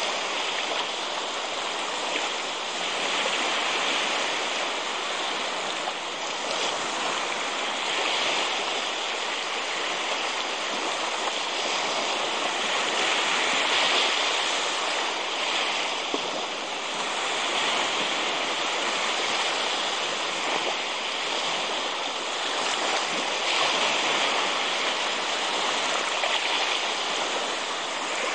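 Steady rush of water that swells and eases every few seconds: small waves washing up on a sandy shore.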